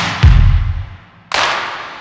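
Intro music built on heavy, deep drum-like hits: one lands just after the start and fades away, then a hissing swell rises through the second half and cuts off into the next hit at the end.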